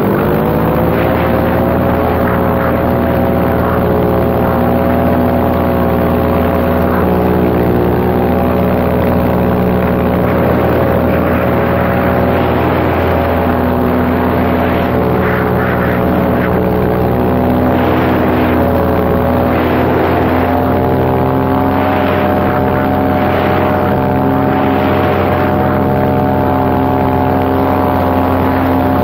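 Paramotor engine and its freshly replaced propeller running in flight. The pitch rises in the first second as the throttle opens, then holds steady with small shifts.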